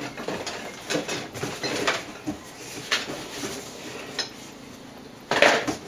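Metal tools and iron pieces clinking and clattering as they are handled and shifted on a workbench, with scattered light knocks and a louder clatter near the end.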